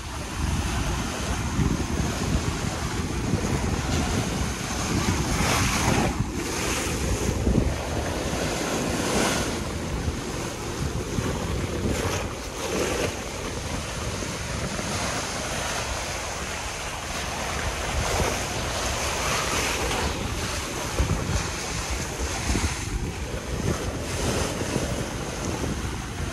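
Small waves washing in over a shallow rocky reef and against a stone seawall, the surf rising and falling in repeated surges, with wind buffeting the microphone.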